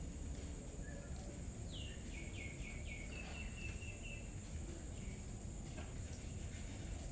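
A bird calling: four quick falling notes, then a fast run of short even notes, lasting about two and a half seconds from a couple of seconds in. Underneath are a steady high-pitched whine and low outdoor background noise.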